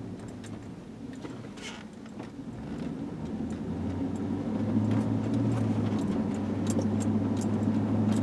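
Car engine and road noise heard from inside the cabin as the car pulls away. The hum grows louder over the first few seconds, then holds steady, with a few faint clicks on top.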